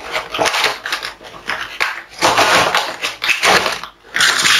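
Cardboard packaging of a Hairdorables doll box being pulled open and its paperboard insert drawn out: rustling and scraping of cardboard in several bursts.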